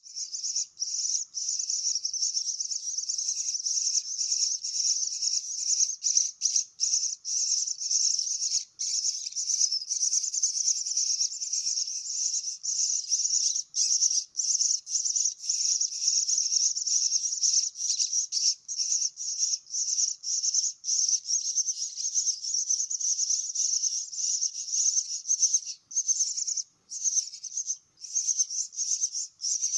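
Nestling starlings (jalak) begging to be fed: a near-continuous, high-pitched, rapid chattering with only brief breaks.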